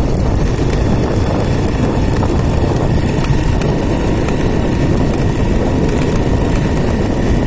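Motorcycle engine running steadily while the bike rides along a dirt road, under a dense, steady low noise.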